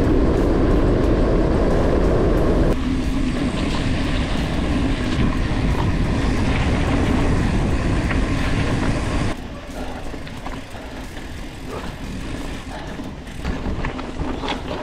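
Mountain bike riding at speed over rough ground: steady rumble and rattle of tyres and bike with wind rushing on the microphone. The noise drops abruptly about nine seconds in.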